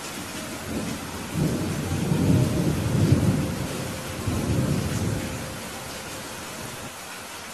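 Steady rain on window glass, with a low roll of thunder that builds about a second in, peaks near the middle and fades out after about five seconds.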